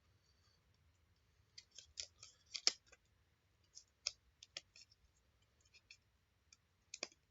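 Faint, scattered crackles and clicks of a trading card pack and its cards being handled and prised apart, the cards stuck together.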